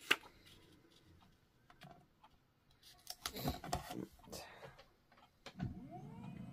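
Faint handling sounds of paper crafting: a sharp click near the start, then soft taps and rustles as paper pieces are handled and layered with adhesive. Near the end a low steady hum rises in and carries on.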